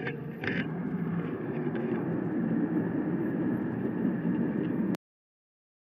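Passenger jet's steady engine rumble, cutting off abruptly about five seconds in.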